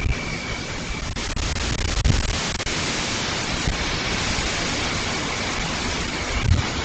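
Gusty storm wind blowing through palm trees, a steady rushing noise that swells with a stronger gust about two seconds in.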